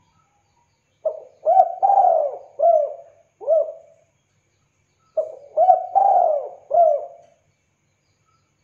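Spotted dove cooing: two phrases of rising-and-falling coos, the first of five notes starting about a second in, the second of four notes about four seconds later.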